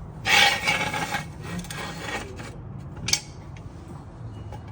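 Metal jack stand scraping along the ground as it is slid into place under a car's jacking point: one loud scrape about a second long, fainter rubbing, then a sharp metal click about three seconds in.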